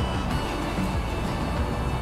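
Background music with steady held tones.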